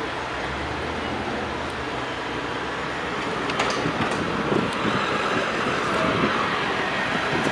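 City street traffic noise with a vehicle going by, louder in the second half.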